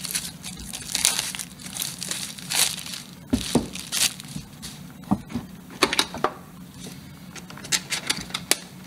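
Plastic packaging crinkling and crackling with irregular sharp clicks as the wrapping and clear plastic card case of a Pokémon trading card tin are pulled off and handled.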